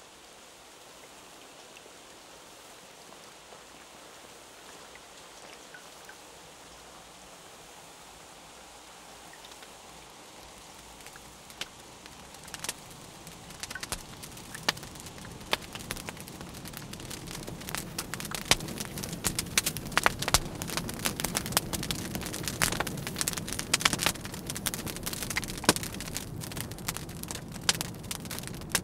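A soft steady hiss that slowly swells. From about twelve seconds in it fills with sharp crackles and pops, growing denser and louder over a low rumble.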